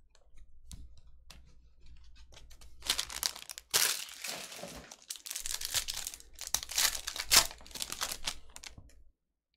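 Foil wrapper of a Panini basketball card pack crinkling and being torn open. From about three seconds in there are several sharp rips, and the sound stops abruptly near the end.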